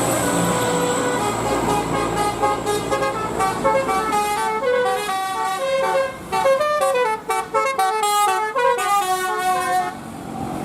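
Bus 'telolet basuri' musical horn playing a fast melody of quickly changing notes over the low rumble of the vehicle, dropping away shortly before the end.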